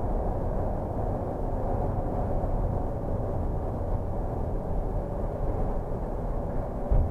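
Steady low rumble of engine and tyre noise heard from inside the cabin of a vehicle driving at speed, with a brief thump right at the end.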